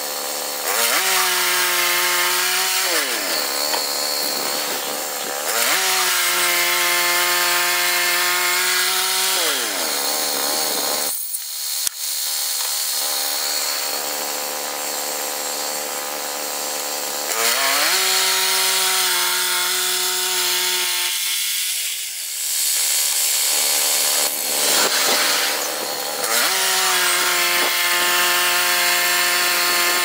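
Woodland Mills HM122 portable bandsaw sawmill running and cutting pine, its engine holding a steady pitch then falling off in pitch several times and picking up again, under a constant hiss from the blade in the wood.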